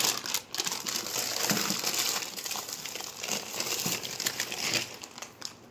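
Packets of frozen food crinkling and rustling as they are handled and taken out of a fridge.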